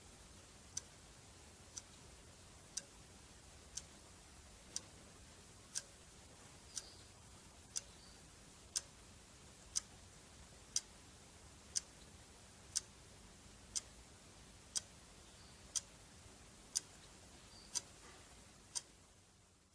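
Clock ticking, one sharp tick about every second over a faint steady hiss that fades out near the end.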